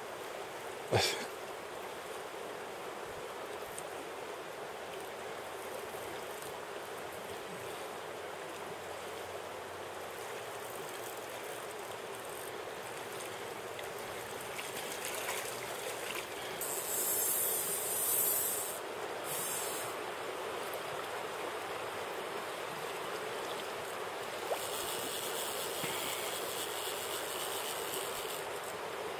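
Steady rushing of river current. There is a sharp knock about a second in, and two stretches of louder high hiss, one past the middle and one near the end.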